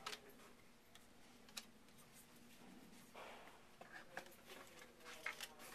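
Faint, scattered clicks and a soft rustle from trading cards being handled and flipped through by hand. A few sharper ticks stand out, about a second and a half in, around four seconds and just after five seconds.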